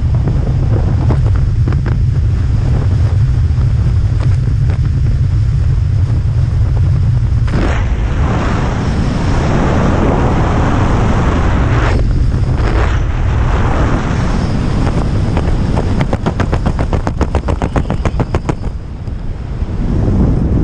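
Wind buffeting the microphone of a helmet camera under an open parachute canopy: a loud, steady low rumble, with a run of rapid crackling pops near the end.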